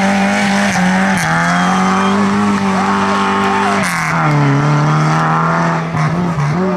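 Race car engine running hard at high revs. Its pitch drops and climbs back about a second in and again near four seconds.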